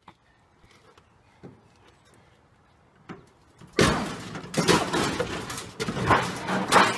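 A few faint knocks, then about four seconds in a stainless steel gas grill crashes down wooden deck steps: a run of loud metal bangs and rattles.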